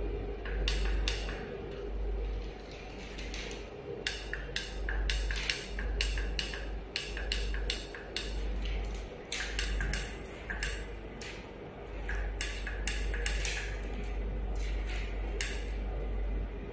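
Repeated sharp clicks of a button on a handheld LED-strip controller, pressed again and again in quick irregular runs to raise the number of ICs the running strip is set to drive. A steady low hum runs underneath.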